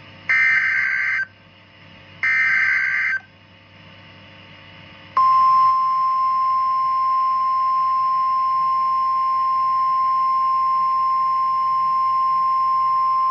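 Emergency Alert System SAME header: two short bursts of harsh digital warbling, about a second each and a second apart, the last of the three data bursts that code the warning. About five seconds in, the long steady 1050 Hz alert tone starts and holds, the single-tone warning alarm used by NOAA Weather Radio.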